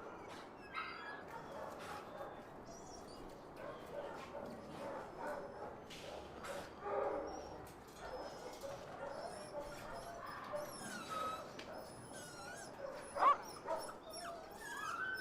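Dogs whimpering and yipping in short whiny cries, with one louder rising yelp about thirteen seconds in.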